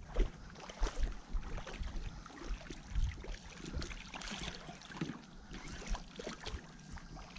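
Hooked striped bass splashing and thrashing at the surface in shallow water, in short irregular bursts, with wind gusting on the microphone.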